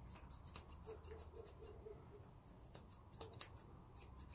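Grooming scissors snipping a West Highland White Terrier's coat: faint quick cuts at an irregular pace, several a second.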